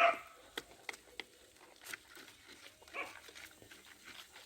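A small dog giving a short, high-pitched yelp, and another about three seconds later, with a few light clicks in between.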